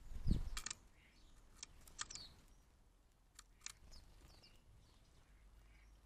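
House sparrows giving scattered short chirps, a few at a time, with a low thump just after the start as the loudest sound.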